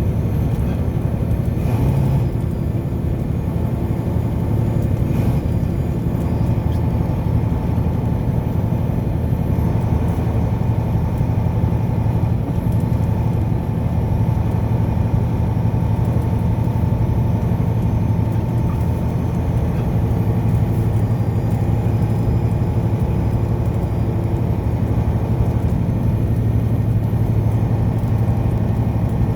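Car driving at a steady speed: an even, low drone of engine and tyre noise that holds unchanged throughout, with a few faint ticks about 2 and 5 seconds in.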